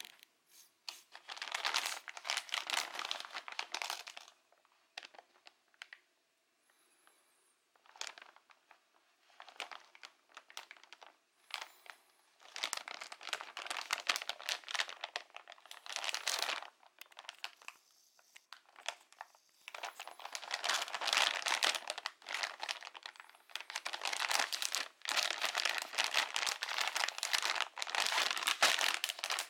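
Clear plastic poly bag crinkling as it is handled, in five long bursts of rustling with short quiet gaps between them.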